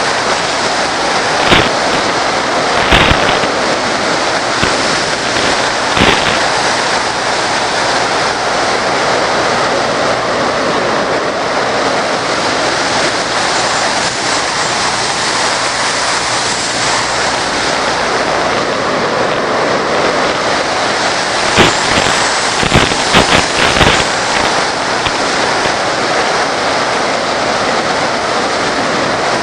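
Steady loud rushing hiss on the audio of an FPV airplane's video link as recorded on the DVR, with short crackling pops a few times, in a cluster about two thirds of the way through.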